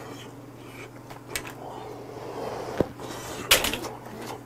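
Soft mouth sounds of eating over a steady low hum, with a sharp click near the middle and a louder knock about three and a half seconds in.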